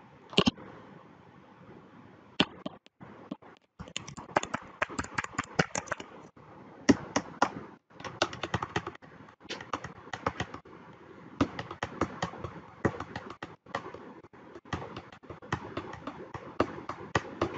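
Desoldering an IC from a circuit board with a soldering iron and a desoldering pump: quick runs of sharp clicks and taps, with a few louder single clicks standing out.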